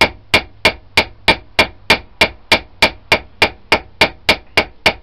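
Small ball peen hammer tapping a steel rivet steadily, about three strikes a second, each with a short metallic ring, peening the rivet head over to set it in a knife handle against the flat of a vise's anvil.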